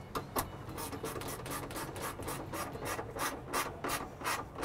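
Hand ratchet with a 10 mm socket clicking in short, even strokes, about three a second, as it runs in mounting bolts.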